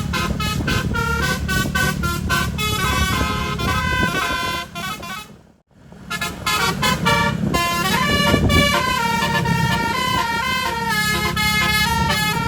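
Multi-trumpet telolet air horn set on a coach bus playing a 'basuri' melody in quick stepped notes, over a low engine rumble. The sound cuts out briefly about five and a half seconds in, then the tune carries on.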